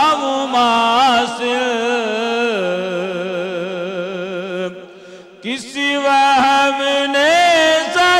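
A solo male voice singing an Urdu naat, drawing out a long melismatic note that steps down in pitch about two and a half seconds in and wavers with vibrato. He breaks briefly for breath about five seconds in, then resumes with quick ornamented turns.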